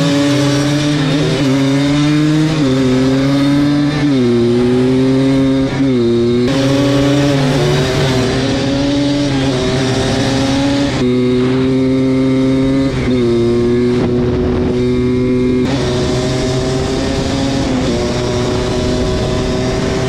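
Two-stroke ATV engines at full throttle in a drag race, heard from on board the Kawasaki Tecate 4 with the Yamaha Blaster running alongside. The engine note climbs and drops back in pitch at each of about five upshifts, then holds high near the end.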